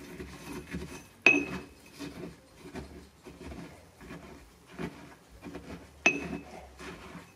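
Ceramic pestle crushing and scraping fluffy chunks of basic copper carbonate in a porcelain mortar, in repeated strokes about two a second. Twice, about a second in and about six seconds in, the pestle strikes the bowl with a sharp, ringing clink.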